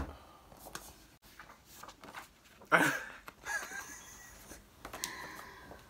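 Two men laughing loudly, starting about three seconds in, after a quieter stretch of small sounds of writing on cards.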